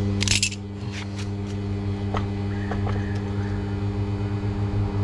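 Stick welder's transformer humming steadily, with a brief loud hiss-crackle about a quarter-second in and scattered light clicks and ticks after it.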